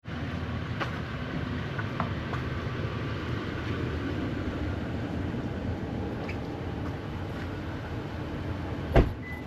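Steady low rumble of a vehicle in motion, with a few light clicks and a sharp knock near the end.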